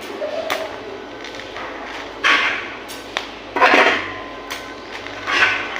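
Metalwork on steel: a few short bursts of clattering, scraping noise about a second and a half apart, with sharp knocks between them.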